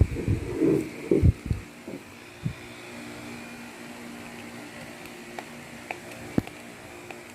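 Small knocks and clicks of screws being worked out of a Samsung Galaxy S6 Edge's inner frame with a small screwdriver: a cluster of knocks in the first couple of seconds, then a few sparse ticks. A steady low hum runs underneath.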